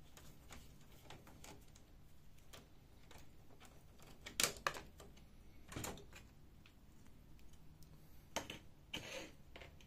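Scattered small clicks and knocks of a screwdriver and a plastic cover being worked loose inside a Canon imageRUNNER copier. The two loudest plastic knocks come about four and a half and six seconds in, as the small side cover by the fuser comes off.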